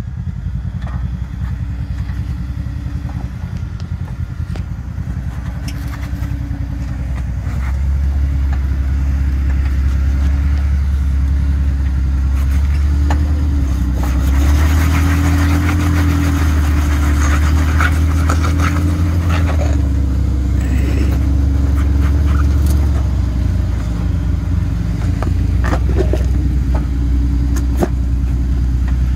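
Jeep Wrangler engine running at low revs as it crawls over rocks, getting louder about eight seconds in as it takes the climb. Crunching and scraping under the tyres around the middle.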